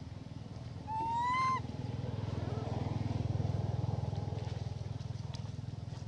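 A macaque gives one short, clear, high-pitched coo call, rising slightly, about a second in. A low engine hum runs underneath, swelling in the middle and easing off.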